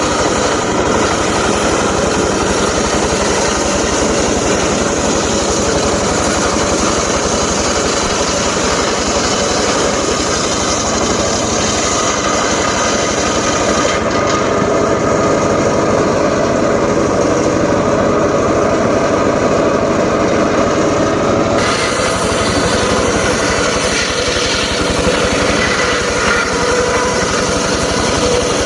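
Homemade engine-driven circular saw running steadily. The high hissing part of the sound drops away for several seconds about halfway through and then comes back.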